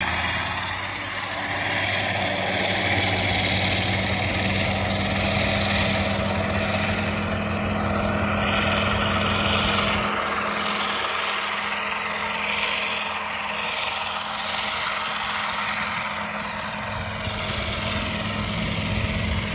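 Diesel engines of big John Deere tractors running hard under load while pulling moldboard plows, a steady low drone. The engine note changes about halfway through.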